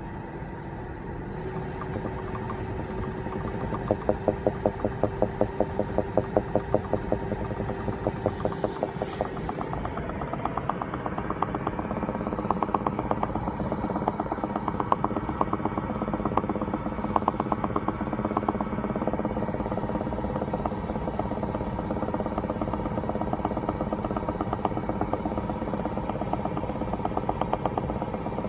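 2016 BMW X5 (F15) driving, its steady running hum overlaid by a rapid bubbling/popping noise: a fast train of pops, several a second, strongest from about four to nine seconds in, returning in looser bursts later.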